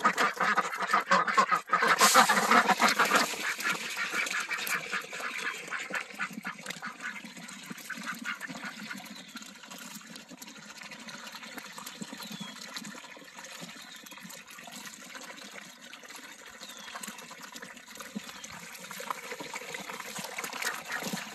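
A crowd of domestic ducks dabbling feed pellets out of a shallow bowl of water, many bills rapidly chattering, slurping and splashing together. Loudest over the first three seconds, then a steady dense chatter.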